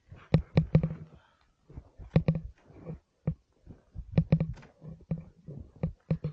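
Footsteps crunching through deep snow: an irregular run of sharp crunches, several a second with short pauses between.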